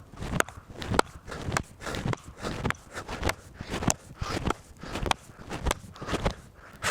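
Axe blows chopping into a wooden log: a steady run of sharp strikes, about two a second.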